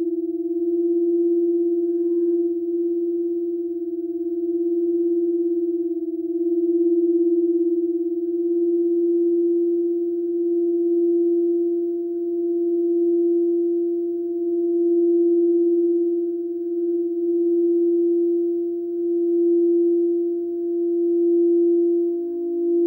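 Frosted quartz crystal singing bowls being rimmed with mallets: one sustained, pure tone with a faint octave above it, swelling and fading about every two seconds as the mallet circles. A second, lower bowl tone joins near the end.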